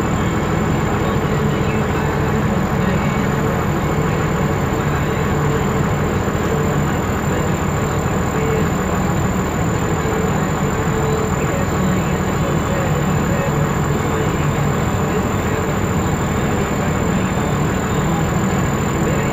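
John Deere 4420 combine running steadily while harvesting soybeans: a loud, even engine and machinery drone with a constant thin high whine over it.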